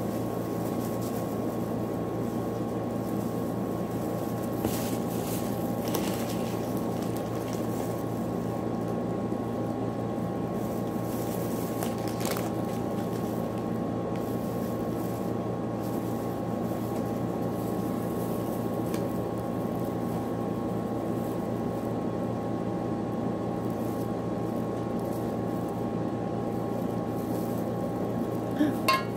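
Steady mechanical hum with several constant tones, with faint rustles and clicks of plastic-gloved hands folding sambusa pastry sheets; a brief louder burst comes near the end.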